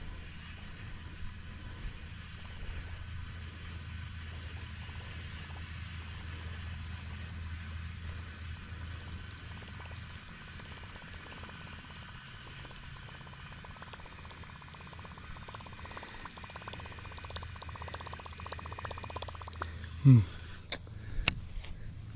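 Evening chorus of insects: a steady high-pitched trill over a low steady hum. Near the end there is a short, loud falling sound, then a couple of sharp clicks.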